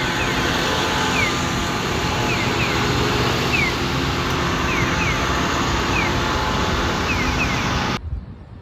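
Steady engine noise, as from a running vehicle, with short falling chirps about once a second; it drops away suddenly near the end.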